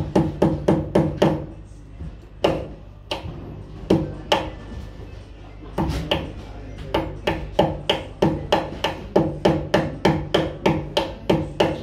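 Hammer striking a wooden stud at the base of the wall in quick runs of short, ringing blows, about three a second, with a pause of a few seconds between runs, as cable is fastened to the framing.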